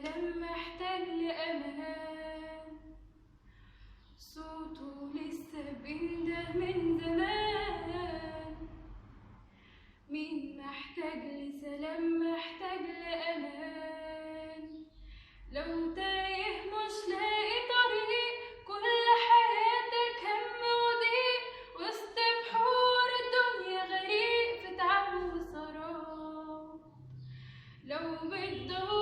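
A woman singing an Arabic Christian hymn with little or no accompaniment, in long sustained phrases with short pauses for breath between them.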